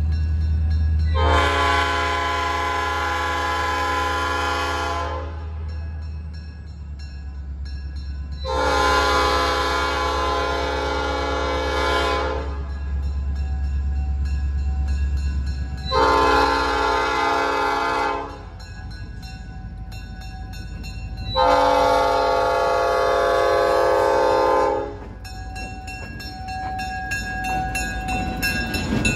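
Passenger train's horn sounding the grade-crossing signal: two long blasts, a short one and a final long one, a many-note chord. Under the first two-thirds, the low rumble of the passenger cars rolling past fades out.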